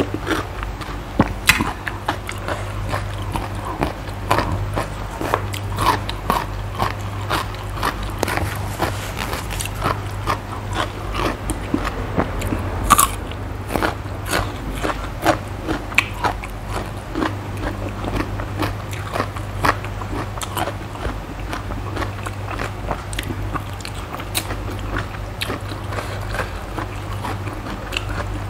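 Close-miked chewing and crunching of mouthfuls of spicy Thai cucumber salad with chicken feet and raw radish, a steady run of sharp crunches with the loudest about halfway through. A steady low hum sits underneath.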